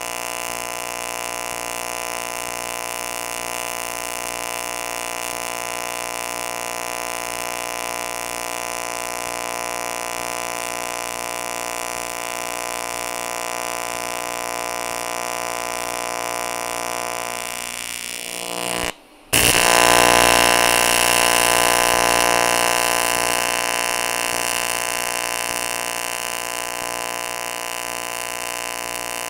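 AC TIG welding arc on aluminium, a steady electric buzz. About 19 seconds in it breaks off for half a second, then comes back louder and settles again.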